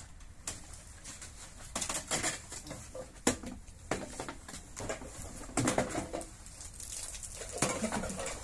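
Scattered rustles and knocks as rubbish, dry pine needles and tin cans, is picked off a wooden doghouse roof and dropped into a plastic pet carrier, with a sharp knock about three seconds in.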